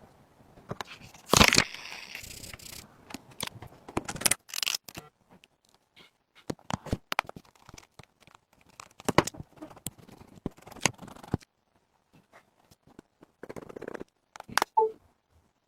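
Handling noises from phone repair work. About a second and a half in there is a loud noisy rasp, like tearing or peeling, that runs for nearly three seconds. After it come scattered small clicks and taps of tools and parts on the phone.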